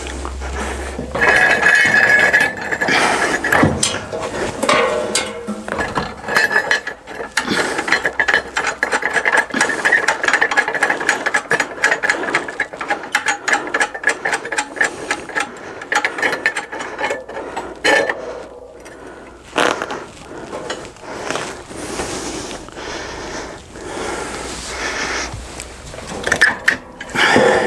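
Rapid metallic ratcheting clicks with a steady ringing tone, from about a second in until past the middle, then slower, scattered clicks and a few louder knocks near the end: hand tightening and adjusting on the metal frame of a loft ladder.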